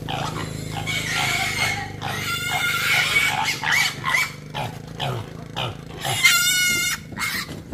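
Piglets squealing as they are caught and carried upside down by their hind legs, a run of shrill squeals about a second in and the loudest, longest squeal about six seconds in.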